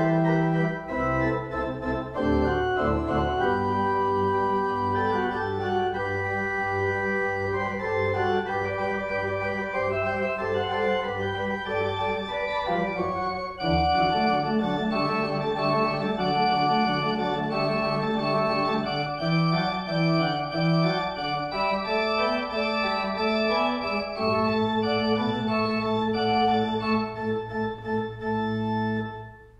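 Church pipe organ playing slow, sustained chords over long-held low bass notes. The music dips and breaks off briefly at the very end.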